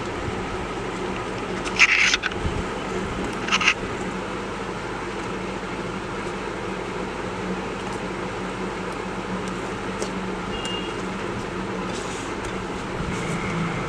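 Steady background hum with a constant low drone, and two short rustling, crackling handling noises about two and three and a half seconds in.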